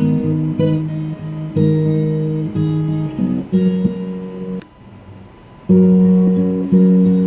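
Background music: plucked acoustic guitar playing slow sustained notes, with a brief drop in level about four and a half seconds in.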